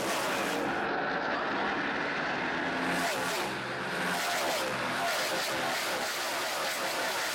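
NASCAR Sprint Cup stock cars racing past at full speed, their V8 engines running flat out in a continuous, loud wall of sound. One car after another goes by in quick succession, each engine note falling in pitch as it passes.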